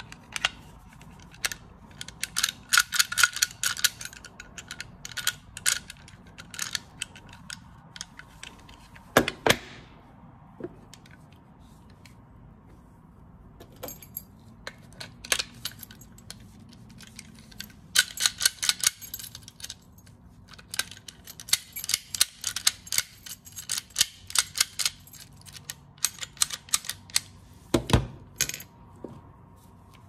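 Metal clicking and clacking of mortise lock bodies being worked by hand: quick runs of sharp clicks from the latch and bolt mechanism with a key in the cylinder, and two heavier knocks, one about nine seconds in and one near the end.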